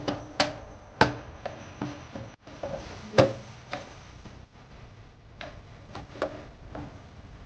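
Irregular knocks and clicks of hard objects being handled, some with a short ring. The loudest comes about three seconds in, and they grow sparser towards the end.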